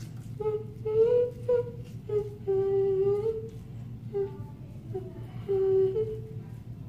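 A girl humming a tune to herself: a string of held notes that step up and down, with short pauses between phrases.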